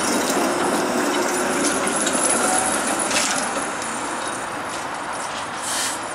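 A CLRV streetcar running on its rails as it pulls away around a curve, a steady rumble and clatter that eases off after about three and a half seconds. Two short higher-pitched bursts come through, one about three seconds in and another near the end.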